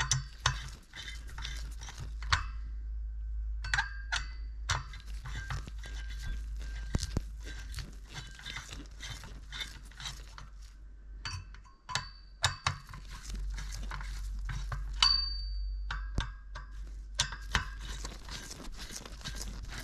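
Screws being tightened down on the heatsinks of an Antminer Z15 hashboard in a crisscross pattern: irregular small metal clicks and clinks, a few ringing briefly, over a steady low hum.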